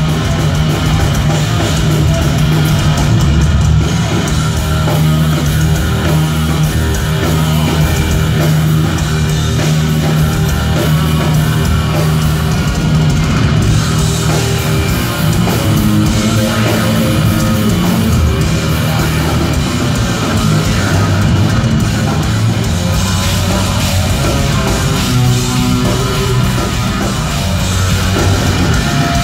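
A thrash metal band playing live and loud: distorted electric guitars, bass and a pounding drum kit in an instrumental passage, heard from within the crowd.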